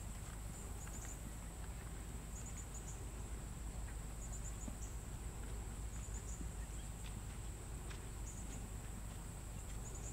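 Faint outdoor ambience: a steady low rumble and a high hiss, with a short cluster of high chirps repeating about every two seconds. The soft hoofbeats of a horse moving on the sand arena are faint at most.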